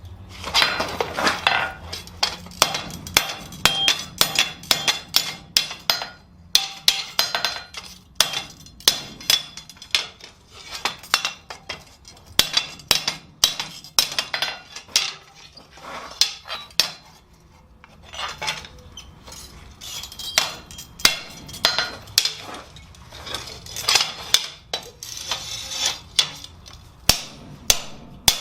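Blacksmith's hand hammer striking steel on an anvil: repeated ringing blows, about two to three a second, in runs broken by brief pauses, while a tong clip is forged.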